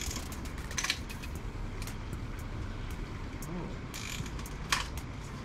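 Hand socket ratchet clicking in short, irregular runs as a fastener in the engine bay is worked, with a few louder metallic clicks about a second in and again around four to five seconds, over a steady low background rumble.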